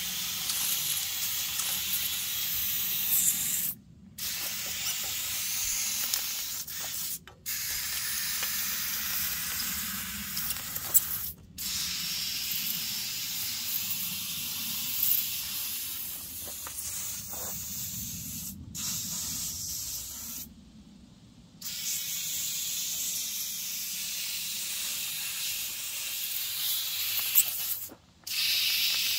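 Compressed air hissing from an air-hose blow gun in long bursts, cut off briefly about six times as the trigger is released, with one longer pause of about a second two-thirds of the way in.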